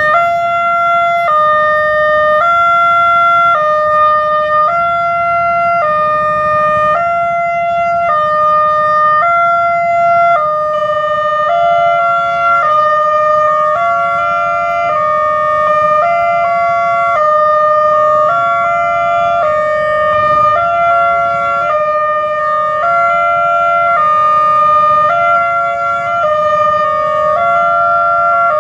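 Railway level-crossing alarm from a loudspeaker horn, sounding a steady electronic two-tone hi-lo tone. It switches between the two pitches about every two-thirds of a second, warning that a train is approaching and the barrier is down.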